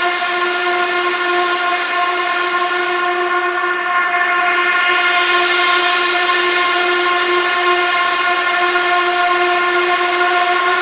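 A loud, steady, horn-like drone holding one unchanging note with many overtones, over a hiss that thins about three seconds in and swells back.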